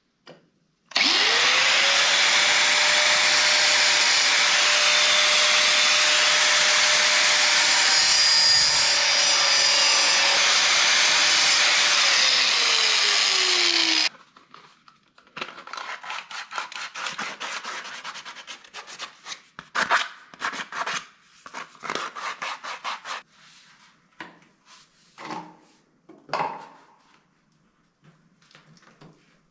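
Corded angle grinder starting up about a second in and cutting through a white PVC drain pipe, with a steady high whine over the cutting noise for about thirteen seconds, then the whine dropping as it winds down. After that comes a run of quick clicks and light knocks as the plastic pipe is handled and fitted.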